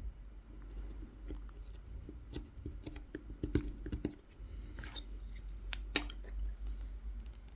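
Tip of a Mora 106 carving knife scoring fine lines into wild cherry wood for kolrosing: short scratchy cuts and small clicks at an uneven pace.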